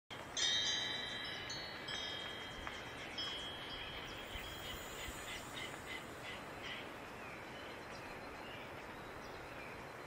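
Soft chime-like ringing tones, a few struck in the first three seconds and fading away, then some short faint chirps over a steady low hiss.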